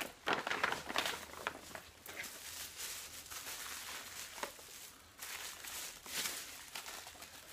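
Crinkling and rustling of a stout plastic bag being handled and opened, in irregular bursts.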